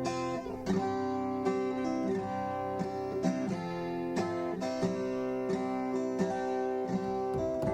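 Background music: acoustic guitar played with plucked and strummed notes at a steady pace.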